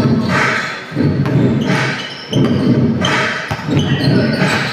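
A man's voice in phrases of about a second and a half, with short breaks between them.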